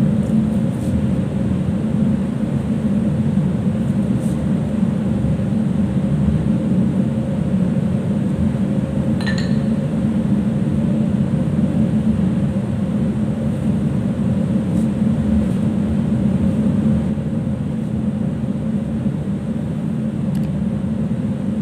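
Steady low drone of a ship's machinery and ventilation, with a constant hum tone riding on it. A single short, light clink about nine seconds in.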